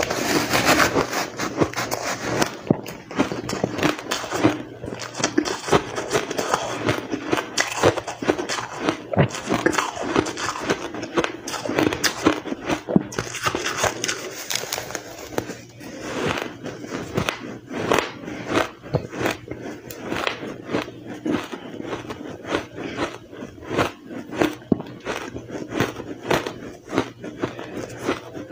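Powdery blender-shaved ice being bitten and chewed close to the microphones: a dense, unbroken run of crisp crunches, several a second.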